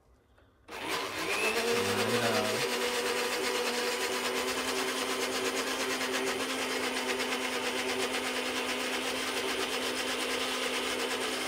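Electric countertop blender switched on about a second in, its motor rising in pitch as it spins up and then running steadily while it grinds a soto spice paste of candlenuts and Javanese spices.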